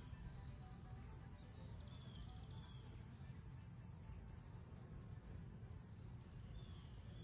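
Faint summer outdoor ambience: a steady high-pitched insect trill, with a few short falling bird chirps and a low rumble of wind.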